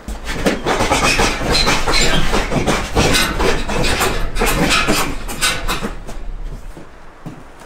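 A fast flurry of punches landing on a hanging heavy punching bag, the bag's chains rattling, mixed with sharp whooshing mouth sounds that the puncher jokingly claims came from his fists. The blows thin out about six and a half seconds in.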